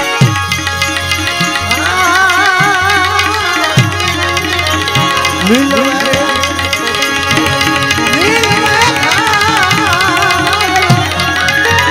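Live devotional bhajan music: a melody line of held, wavering notes over a steady hand-drum rhythm.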